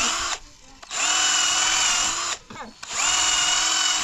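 Cordless drill boring holes through a wooden slat in short runs: one run stops just after the start, then it runs twice more for about a second and a half each, its whine rising briefly as each run starts and then holding steady.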